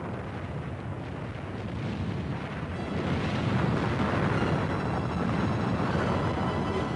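Deep, noisy rumble of a volcanic eruption breaking through a glacier's ice cap and throwing up an ash column, growing louder about two to three seconds in.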